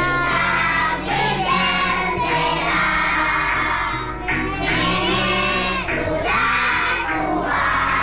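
A group of schoolchildren singing together along to a recorded music backing track, with a bass line that steps from note to note beneath their voices.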